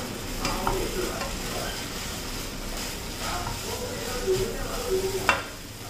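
Instant fried noodles sizzling in a non-stick wok while a spatula stirs and scrapes through them, with one sharper knock near the end.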